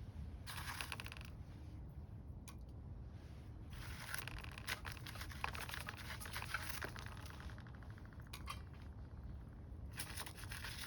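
Small wood fire burning in a compact secondary-combustion wood stove: a low steady rumble of flame with scattered crackles and pops. There are spells of denser, hissing crackle about half a second in, from about four to seven seconds, and near the end.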